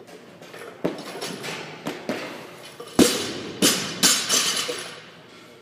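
Barbell loaded with bumper plates knocking and clanking, about six sharp hits with a ringing tail after each; the loudest comes about three seconds in.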